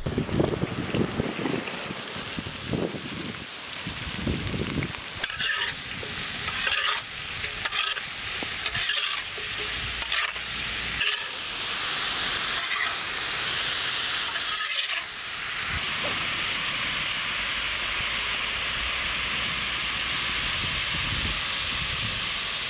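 Finely chopped onions tipped into hot oil and garlic on a large iron tawa, sizzling as they start to fry. A metal spatula scrapes and stirs across the pan in a series of strokes from about five seconds in, and for the last several seconds there is a steady frying hiss.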